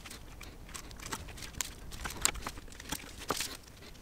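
A series of light, irregular clicks and soft rustles from small metal carburettor parts being handled by gloved hands.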